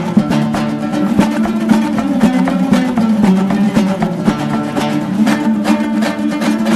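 Background music with plucked strings over a quick, steady beat.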